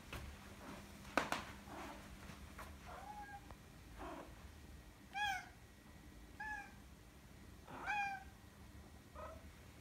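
Maine Coon cat giving five short meows, spaced a second or more apart, after a single sharp knock about a second in.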